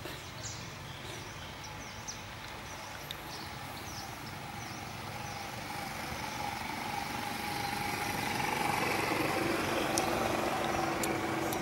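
Steady outdoor background noise with a faint, steady hum that grows slightly louder in the second half, small high chirps early on, and a few sharp clicks near the end.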